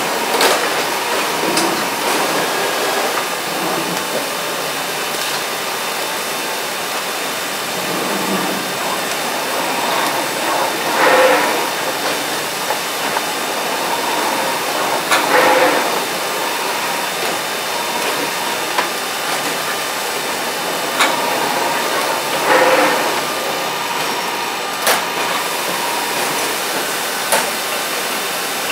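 Automated palletizing machine running while it stretch-wraps a pallet of water jugs: a steady mechanical whir with a faint constant tone. A few short louder swells and occasional sharp clicks come from the machinery.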